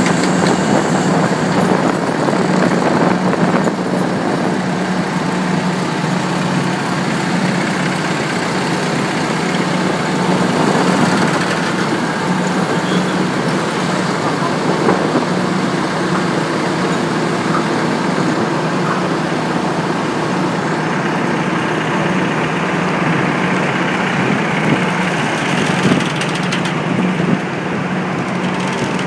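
Heavy machinery running steadily: a loud, constant drone with a low hum beneath it.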